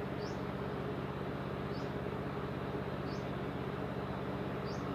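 Steady low hum of a pond aerator's pump, with the hiss of its spraying water. A short high chirp repeats about every second and a half.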